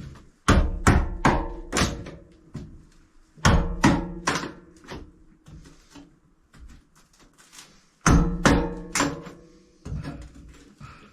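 Hammer blows on wooden galley cabinetry being demolished: three bursts of quick strikes, several a second, each blow ringing briefly.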